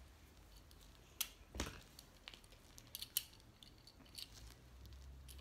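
Faint, scattered clicks and light rustling as small fidget toys, among them magnetic fidget rings, are picked up and handled: about half a dozen short sharp clicks at irregular intervals.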